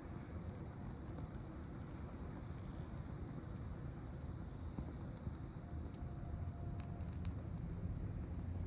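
Small fire burning in a micro stove, a few faint crackles late on over a steady low rumble and a steady high hiss.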